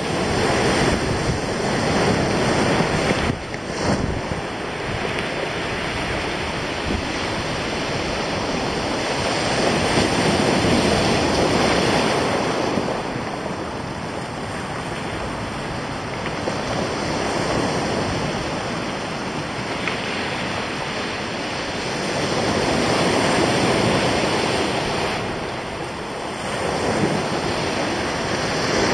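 Sea surf breaking and washing over rocks and pebbles at the shoreline, swelling louder and easing off in slow waves, with wind blowing on the microphone.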